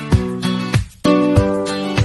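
Background music: an upbeat track with guitar and a steady beat, briefly dropping out about a second in.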